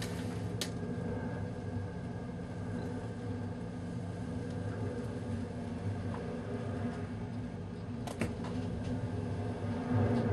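Steady low drone of a ferry's engines and machinery, with a sharp click just after the start and a couple of brief knocks or rattles about eight seconds in.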